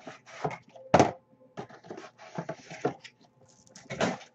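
Plastic wrapping on a box of trading cards crinkling and rustling as it is pulled off and crumpled, with two louder crackles, about a second in and near the end.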